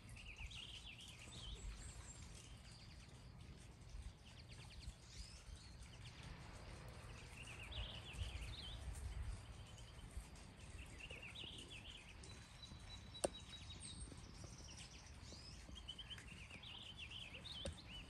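A songbird singing short, quick twittering phrases of high notes, one phrase every few seconds, over a low background rumble. A single sharp click about thirteen seconds in.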